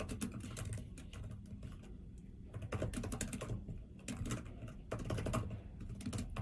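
Typing on a computer keyboard in quick runs of keystrokes with short pauses between them.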